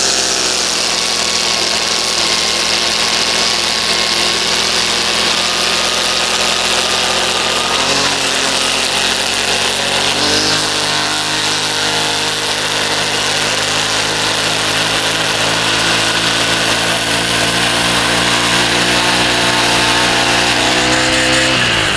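Brush cutter engine running at a steady throttle while its spinning nylon trimmer line is held against a rock, with a sound of the engine under heavy load as the line strikes the stone and wears away. Its pitch shifts slightly a couple of times, and just before the end the engine winds down.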